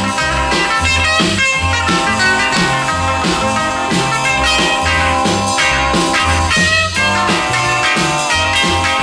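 Instrumental break of a 1950s rock-and-roll band recording: electric guitar solo over bass and a driving drum beat, with no singing.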